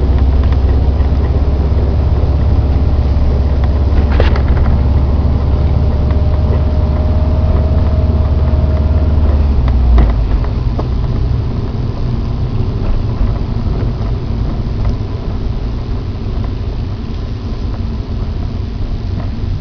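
2009 Subaru Impreza WRX STI running with a heavy low rumble that drops off after a brief jolt about ten seconds in. A faint steady whine holds for a few seconds in the middle. This is the car's unexplained weird noise.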